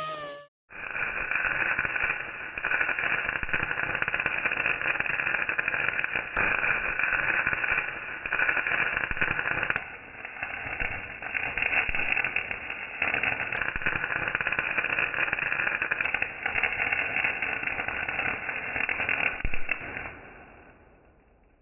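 Electric arc welding of a crack in a cast iron body: a steady crackling and sizzling of the arc, dipping briefly about halfway through and fading out near the end.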